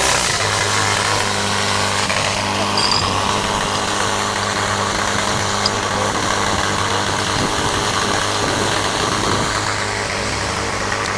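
Portable fire pump's engine running steadily, with an even hum that holds from about half a second in.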